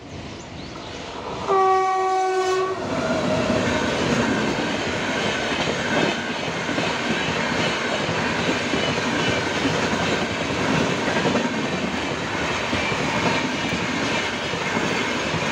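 Indian Railways LHB express train passing at high speed: its locomotive horn sounds once for just over a second, dropping in pitch at the end as it goes by, followed by the steady rush and rattle of the coaches on the track.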